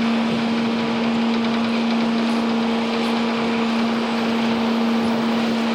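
Street traffic noise with a steady low hum held at one pitch throughout.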